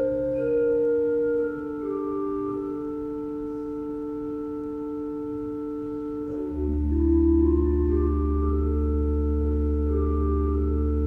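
Background music of slow, sustained held tones that change pitch gently; a deep bass note comes in about six and a half seconds in and the music grows louder.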